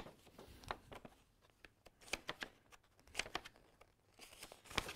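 Faint rustling and a few small clicks as a craft kit's packaging is handled and looked through.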